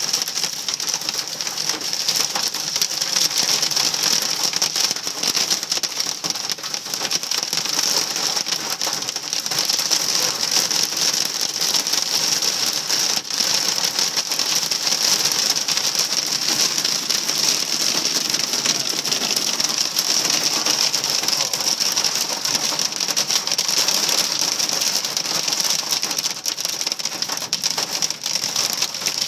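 Hailstones hitting a vehicle's roof and windshield, heard from inside the cabin: a loud, dense, unbroken clatter of small impacts.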